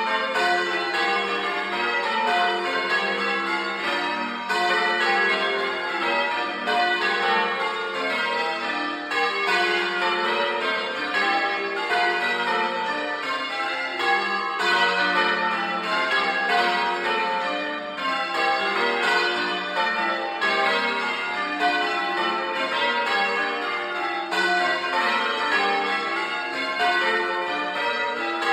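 A ring of church bells in English change ringing, heard close up from inside the belfry: bell after bell struck in a steady, unbroken sequence, their tones ringing on and overlapping.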